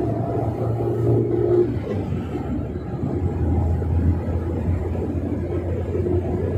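Car engine and road noise heard from inside the cabin while driving: a steady low drone that drops a little in pitch about two to three seconds in.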